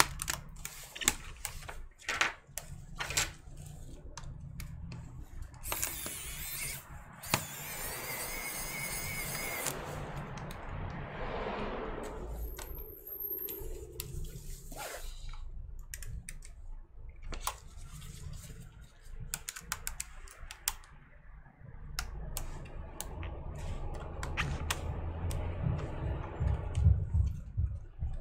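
Scattered clicks and taps of plastic laptop parts being handled and pried at, with a few seconds of dense rustling noise about six seconds in, over a steady low hum.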